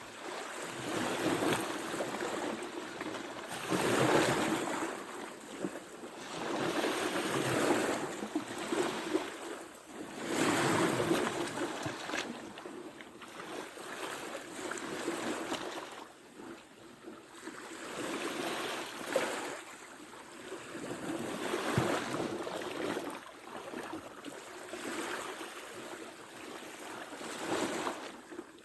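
Ocean waves breaking and washing on the shore, the surf swelling and easing every few seconds, with some wind on the microphone.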